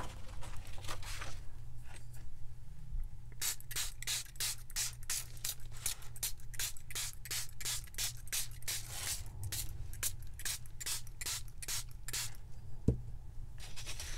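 Spray bottle of coffee dye squirted in quick repeated pumps, about three or four a second, from about three seconds in until about a second before the end. A single knock follows.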